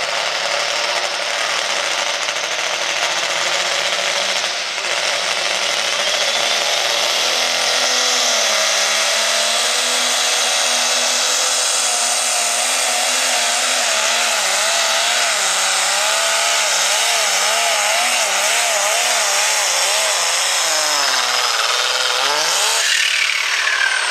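Light super stock pulling tractor's turbocharged diesel engine running flat out, dragging the weight-transfer sled. Its pitch wavers up and down through the pull, then falls away about two seconds before the end as the tractor comes to a stop.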